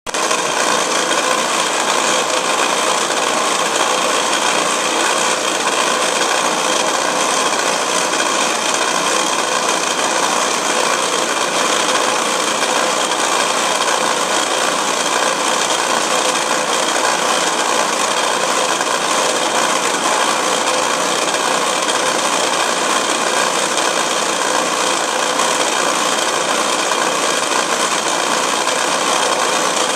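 Lathe running while a twist drill bores into the spinning metal workpiece, a steady, unbroken machine whine and cutting noise as the bit throws off a long curled chip.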